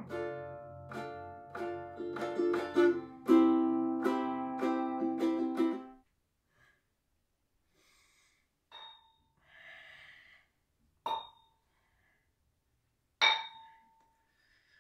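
Ukulele played in a quick run of plucked notes for about six seconds, then stopping. After it come three sharp clinks with a short metallic ring and a soft breathy noise between them.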